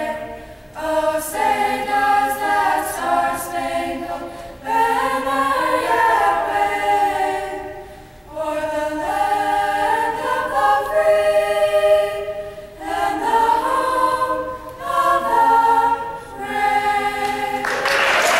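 Pre-game anthem sung a cappella by a group of voices in harmony, phrase by phrase with short breaths between. Applause breaks out just at the end as the anthem finishes.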